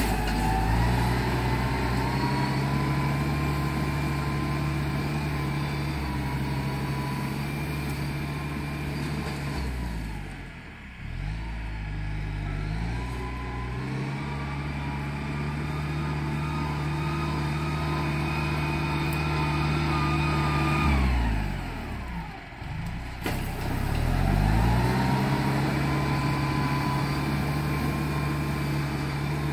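Diesel farm tractor engine working under load. Its revs drop and pick up again twice, about a third of the way in and again around three quarters of the way in.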